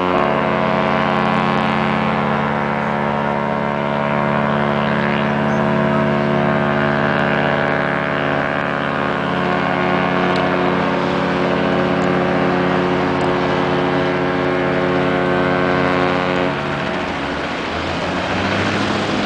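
Cruise ship's horn sounding one long, steady blast of several tones at once, cutting off after about sixteen seconds.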